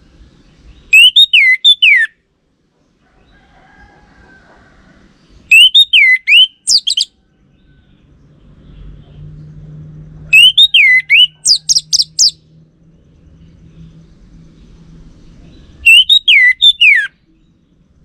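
Orange-headed thrush song: four short, loud phrases about five seconds apart, each a pair of swooping whistled notes followed by quick high-pitched notes.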